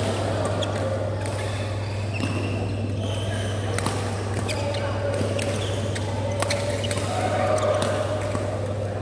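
Badminton doubles rally: repeated sharp hits of rackets on the shuttlecock and short shoe squeaks on the court mat, over a steady low hum.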